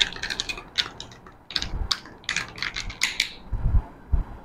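A metal utensil stirring ice cubes in a tall glass of beer and rum, clinking quickly and irregularly against the glass and ice. The clinking stops about three and a half seconds in and gives way to a couple of soft low thumps.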